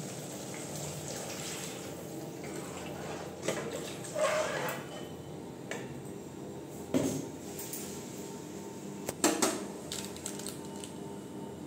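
Water poured into hot fried tomato masala in a frying pan, with a steady hiss throughout. Several sharp clinks of a steel spoon against the pan, some ringing briefly.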